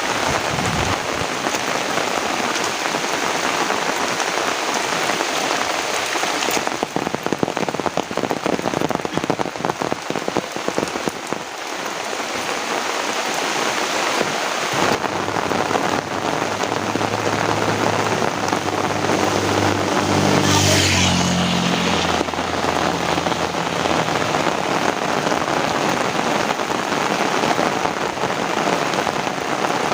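Heavy rain falling steadily and densely. About halfway through, the low hum of a passing motor vehicle rises, peaks and falls away in pitch under the rain.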